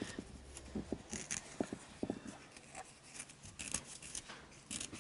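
A rag rubbing and scrubbing a small plastic carburetor float in the hand, wiping off caked old fuel. It comes as irregular short scratchy strokes with small handling clicks and taps.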